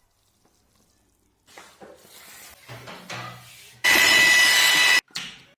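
Renovation work sounds in quick succession: brief rubbing and scraping, then a loud power tool runs for about a second and cuts off abruptly.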